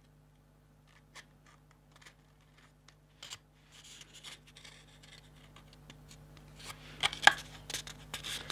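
Thin card being folded and pressed between the fingers: scattered small crackles and taps, growing denser and louder over the last two seconds or so.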